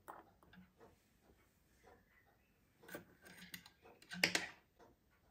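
Small clicks and taps from handling a pocket watch movement and steel tweezers, with a louder cluster of clicks a little after four seconds.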